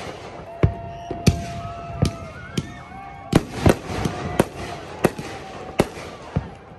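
Aerial fireworks shells bursting in a display: about ten sharp booms at irregular intervals, some close together.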